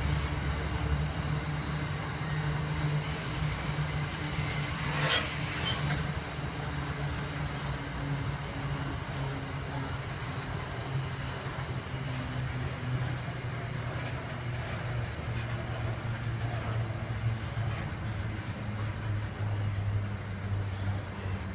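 Grain train hopper wagons rolling past on the rails, a steady, continuous running noise of wheels and wagons. A brief sharp, high sound about five seconds in.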